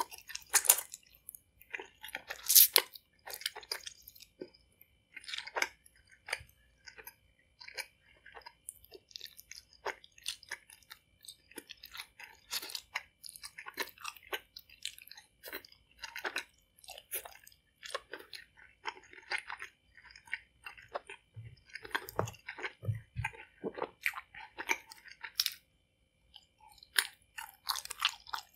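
Close-miked chewing of a sticky Fruit Roll-Up strip, with irregular wet mouth smacks and clicks.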